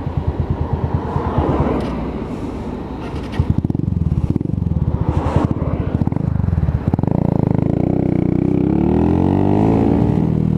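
125cc motorcycle engine running at low revs with a steady chug, then pulling away, its pitch rising steadily over the last few seconds as it accelerates.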